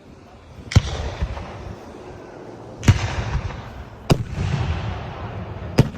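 Aerial fireworks bursting: four sharp bangs a second or two apart, each trailing off in a low rumbling echo.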